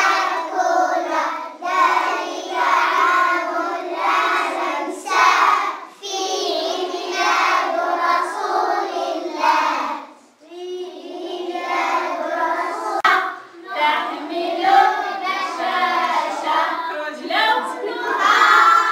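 A class of young schoolchildren singing a song together, in phrases broken by short pauses.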